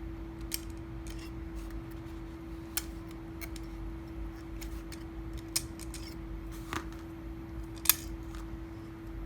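Small plastic beads and 3D printed plastic bearing parts clicking and tapping as they are handled during assembly. There are about six separate light clicks, the loudest near the end, over a steady low hum.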